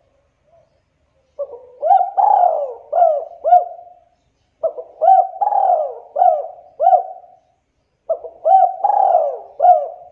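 Spotted dove cooing: three phrases of several rising-and-falling coo notes, a few seconds apart, the last running on past the end.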